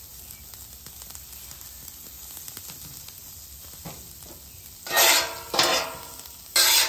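Beef tallow sizzling faintly on a hot Blackstone griddle top, then a metal spatula scraping loudly across the steel plate twice near the end, pushing diced onions and peppers together.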